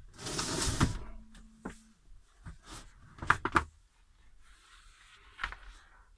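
Handling noises while getting out tape: a loud plastic rustle for about a second, then several sharp clicks and knocks, a softer rustle and one more knock.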